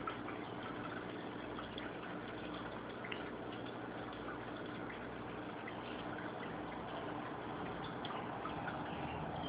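Steady water circulation of a home aquarium: running, trickling water over a low motor hum from the tank's filtration, with a few faint ticks.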